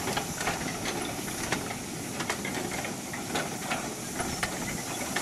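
Light clicks and knocks from a string of empty steel cane wagons being hauled by water buffalo on narrow portable field track, over a steady hiss.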